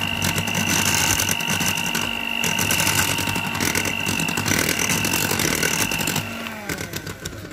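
Electric mixer running at low speed, its beaters churning flour into a thin kefir cake batter: a steady motor whine with the rattle and slap of the beaters in the bowl. The sound changes about six seconds in and dies down near the end.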